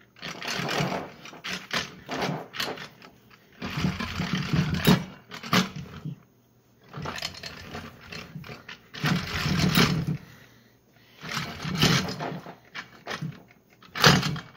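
Input drum of a 4L60E automatic transmission being shaken down into the case by a vise grip on the input shaft: metal parts rattling and clanking in spells of a second or two with short pauses, as the drum works its way down to seat.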